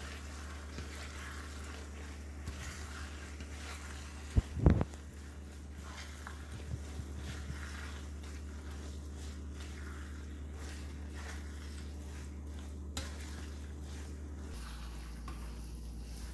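Stir-fried noodles and bok choy sizzling in a frying pan while they are tossed and stirred with chopsticks and a spatula, with soft scraping and small clicks. A pair of sharp knocks against the pan about four and a half seconds in.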